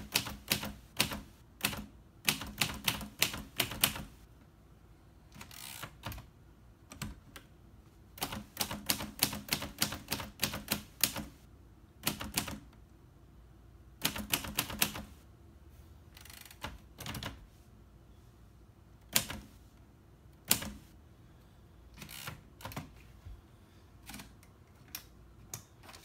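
1947 Royal Quiet De Luxe manual typewriter being typed on, its typebars striking a soft rubber platen. The strikes come in quick runs with pauses between, and sparser single strikes in the second half.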